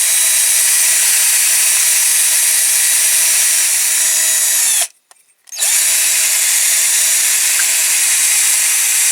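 Drill spinning a small wire brush against a diecast zinc model truck body to strip it for primer: a steady motor whine with the hiss of the bristles scrubbing the metal. It winds down about five seconds in and starts up again after a short pause.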